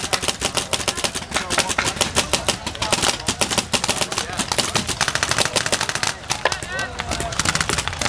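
Many paintball markers firing rapidly at once, a dense run of overlapping shots with no break, and shouting voices about two-thirds of the way in.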